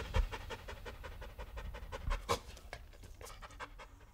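Labrador retriever panting rapidly with her mouth open, a quick even rhythm of about six breaths a second that slowly fades.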